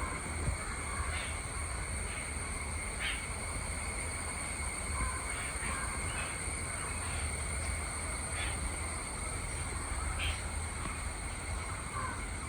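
Outdoor tropical ambience: scattered short bird calls every second or two over a steady high-pitched background drone and a low rumble of breeze.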